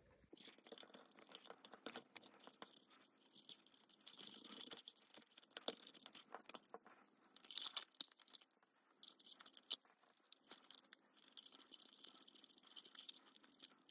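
Faint hand-handling sounds of fingers threading a small bolt and washers onto the back of a milliamp meter inside a plywood box: scattered light clicks and short scratchy rubs of skin and metal against the wood.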